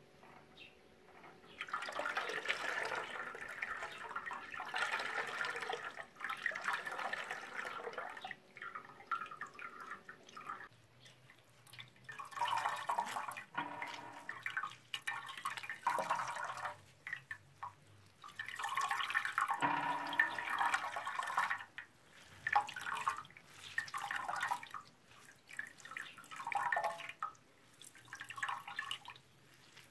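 Fresh juice of crushed unripe grapes running and dripping from a hand-squeezed cloth bag into a pot of juice, in repeated stretches of splashing with short pauses between squeezes.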